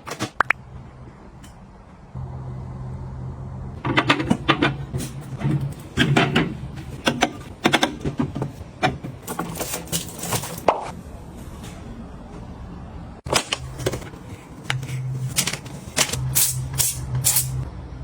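Many quick clicks, taps and light knocks of small hard objects being handled and set down, over a low steady hum that comes and goes.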